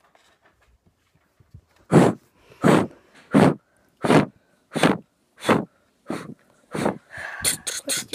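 A person beatboxing a beat with the mouth: breathy, puffed kicks about three every two seconds, starting about two seconds in and breaking into a faster, denser pattern near the end.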